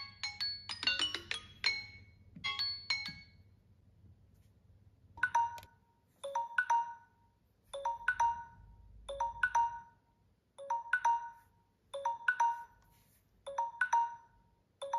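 Samsung Galaxy phone timers going off: a chime melody of quick bell-like notes that stops about three seconds in. After a short pause a second phone's timer starts a repeating alert tone, the same short pattern about every second and a half.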